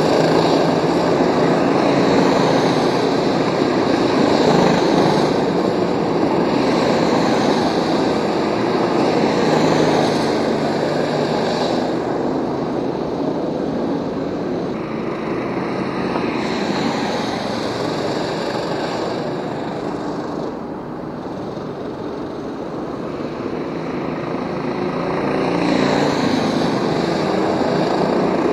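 Go-kart engines circulating on the track: a continuous, rasping buzz with repeated rising pitch sweeps as karts accelerate out of corners and pass. It dips somewhat a little past the middle, then builds again near the end.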